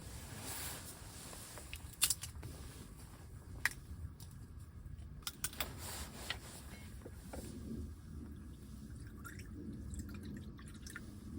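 Water dripping in scattered single drops and light taps, a few sharper than the rest, over a low steady rumble.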